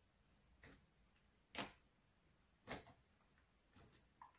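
White slime being pressed and squeezed by hand, giving off short sticky pops and clicks, about five of them at uneven intervals.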